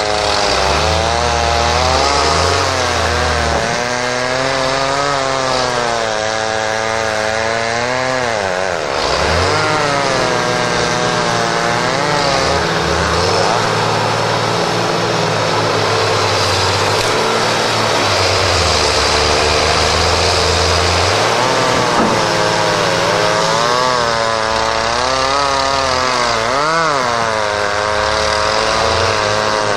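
John Deere tractors' diesel engines running hard under load, the pitch rising and falling again and again as the throttle is worked, while the wheels spin in deep mud trying to pull a stuck tractor free.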